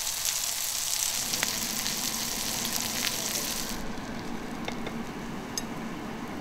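Plant-based burger patties sizzling in hot oil in a frying pan, a dense hiss with crackling pops. About four seconds in, the sizzle cuts off and a steady low hum with a few light clicks remains.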